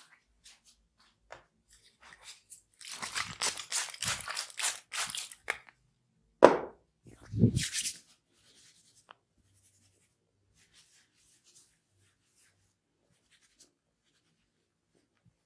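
Hair cracking: a dense run of crackles for about three seconds as tufts of hair are twisted and pulled at the scalp. It is followed by two louder sudden sounds, the first the loudest, each dropping in pitch.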